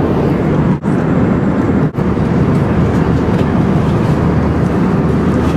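Steady roar of an airliner's cabin noise, engine and airflow heard from a passenger seat. It drops out for an instant twice, about a second and two seconds in.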